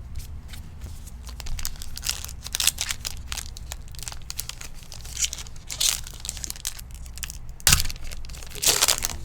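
Trading card pack wrapper being torn open and crinkled by hand, a run of short papery rips and rustles with the loudest tears near the end.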